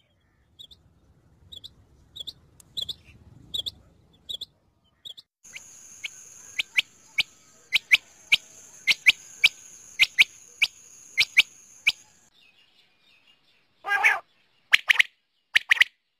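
Female rain quail calling in a run of short, high notes. The notes are faint at first, then louder and about two a second from about five seconds in, with a steady high hiss underneath until about twelve seconds. After a short pause comes one louder, fuller call near the end, followed by more notes.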